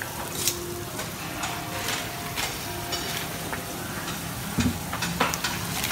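Banana fritters deep-frying in a wok of hot oil: a steady sizzle with scattered sharp clicks and pops.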